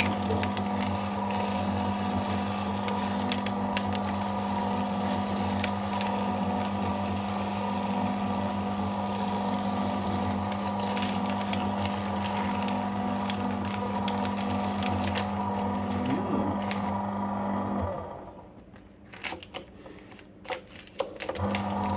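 Electric paper shredder running, its motor humming steadily while the blades cut a strip of thermal ECG paper with a scattered crackling. About 18 seconds in the motor stops, leaving a few paper rustles and ticks, then it starts up again just before the end.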